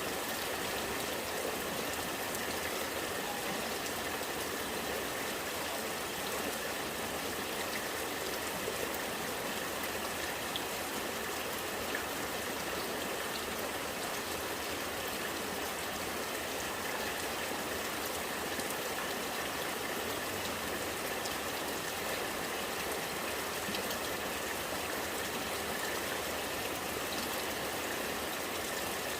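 Rainwater running and gurgling in a steady flow, with a few faint drips and ticks over it.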